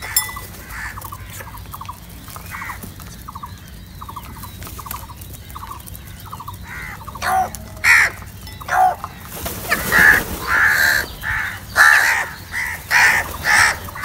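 A flock of house crows calling: quick rattling calls in the first half, then loud caws that come thick and fast from about nine and a half seconds in.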